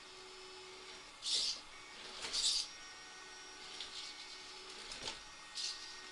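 Redcat Rockslide RS10 XT RC rock crawler's electric drivetrain whirring in short bursts, three or four quick spurts a second or so apart, over a faint steady hum.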